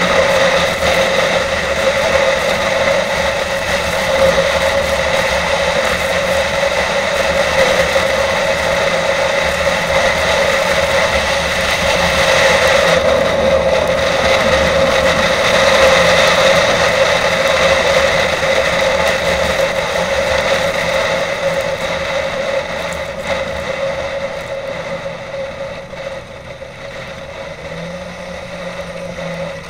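Snowmobile engine running steadily at trail speed, a loud constant drone, easing off and getting quieter over the last several seconds.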